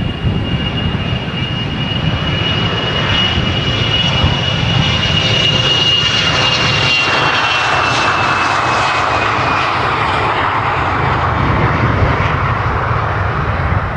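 Airliner passing close by, most likely on landing: a steady high engine whine that drops slightly in pitch as it goes past, with loud engine noise swelling about halfway through.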